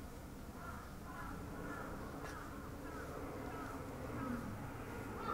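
Faint outdoor background: short high chirps repeating about every half second over a low steady rumble.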